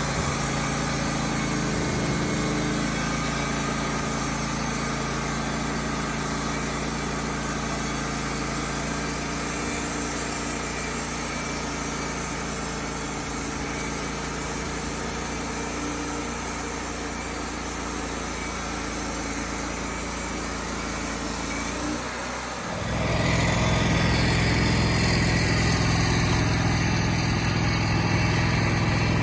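An engine running steadily. About 22 seconds in, the sound dips briefly and a deeper, louder engine sound takes over.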